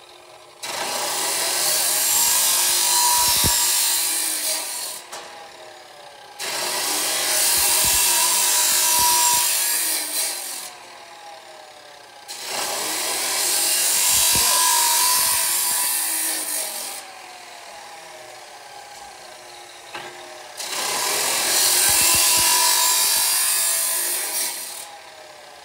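Abrasive cut-off saw (chop saw) cutting through square steel tubing four times. Each cut is about four seconds of loud grinding, and between cuts the disc spins on more quietly.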